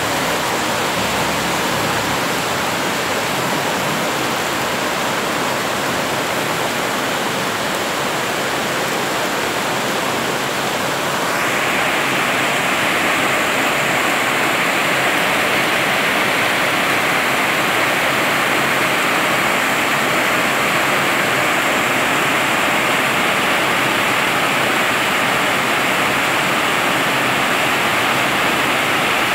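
Heavy rain pouring down hard, a steady dense hiss that grows louder and brighter about eleven seconds in.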